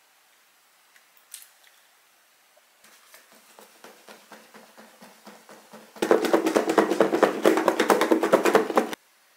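A lidded plastic food-storage container of green onions and liquor being shaken hard: a fast clatter starting about six seconds in and stopping abruptly three seconds later, after a few seconds of softer clicking as the lid is handled.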